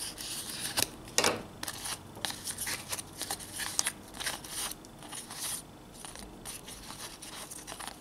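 Corrugated cardboard disc being handled, with a crochet hook and cotton threads scraping and rubbing against it as the threads are pulled through its centre hole: irregular short scratches and rustles, one louder scrape about a second in.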